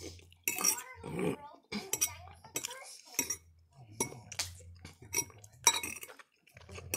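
Metal fork clinking and scraping against a ceramic plate: a string of short, irregular sharp clinks.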